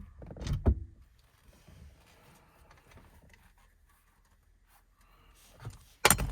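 Hands handling car parts on a steering column: a dull knock about half a second in, faint scraping and rustling, then a sharp clank near the end.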